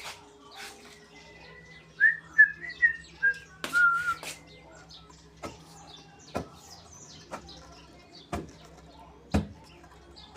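Wooden pestle striking into a pilão mortar about once a second, pounding annatto seeds for colorau. A bird chirps a quick run of notes around two to four seconds in.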